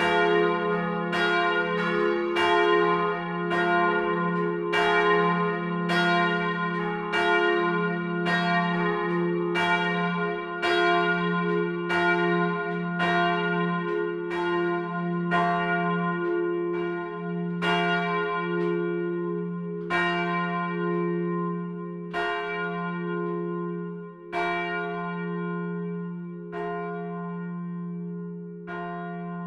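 Swinging church bells of the Lutherkirche peal ringing, with long humming tones under repeated clapper strikes. Over the last several seconds the strikes come farther apart and quieter as the bells swing down toward rest.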